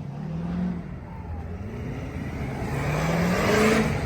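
A vehicle engine revving under load. Its pitch climbs and it gets louder toward the end.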